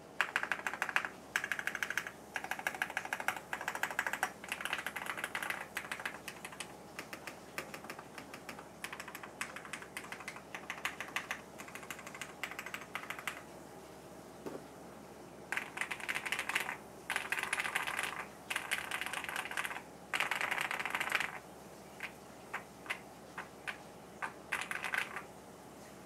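Typing on a Jelly Epoch custom mechanical keyboard with a polycarbonate plate, lubed Gateron Ink Black v2 linear switches and PBT keycaps. Fast runs of keystrokes alternate with short pauses, and slower single keypresses come near the end.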